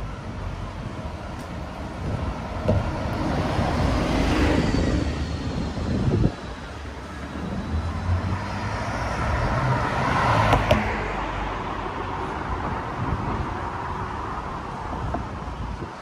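Road traffic: two cars pass by, one about four seconds in and another about ten seconds in, with steady traffic noise between.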